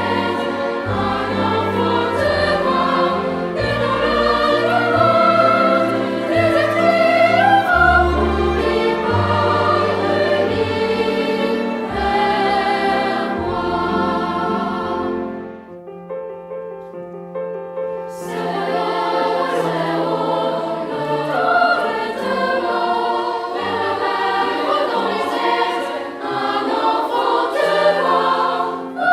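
Music with voices singing over a bass line; a little past halfway the full sound drops away to a thin, quiet passage for a few seconds, then comes back.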